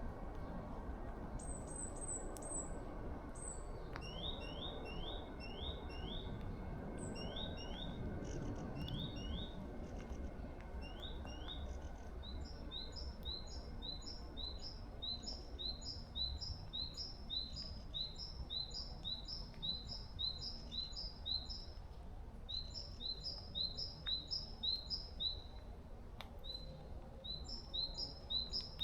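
Songbirds calling. From about twelve seconds in, one bird repeats a short, high chirp two to three times a second, with pauses. Before that, other birds give scattered down-sliding calls and a few very high notes. Under the birds is a low rushing noise, stronger in the first half.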